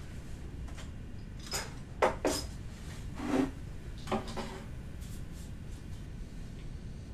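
Objects being handled and set down on a desk: several short knocks and clinks, the loudest about two seconds in, with a duller thud a little after three seconds, over a steady low room hum.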